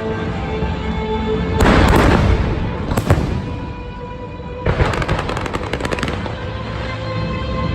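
Fireworks going off over show music: sharp bangs about one and a half and three seconds in, then a quick run of crackling pops about five seconds in.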